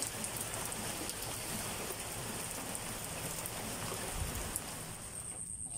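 Steady rain falling on wet ground and foliage, an even hiss that cuts off abruptly about five seconds in.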